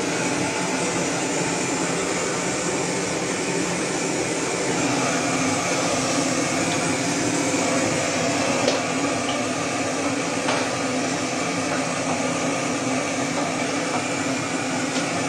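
Handheld gas blowtorch running with a steady hissing jet, used to singe the hair off a carcass.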